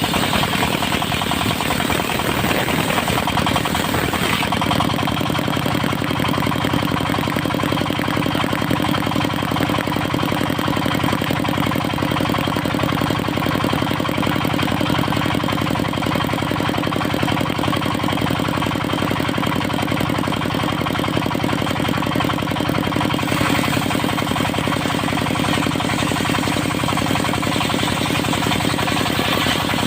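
Diesel engine of a portable circular-saw sawmill running steadily, its note settling about four seconds in.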